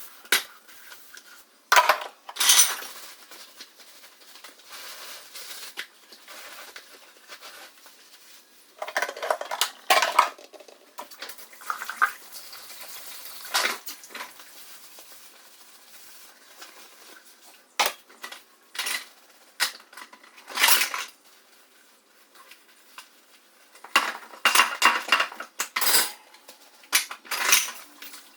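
Dishes and cutlery clinking and clattering as they are washed by hand at a sink, in irregular bursts with quieter stretches between, busiest in the last few seconds.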